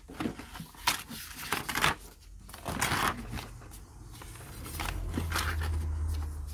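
Paper pages of a paperback picture book being turned and smoothed by hand: a run of short papery rustles and swishes. A low hum comes in for the last second and a half.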